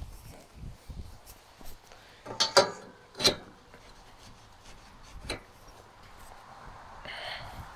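Steel rake frame and lift parts clanking as they are shifted and fitted together by hand: a few sharp metal knocks, the loudest about two and a half and three and a quarter seconds in, and another near five seconds.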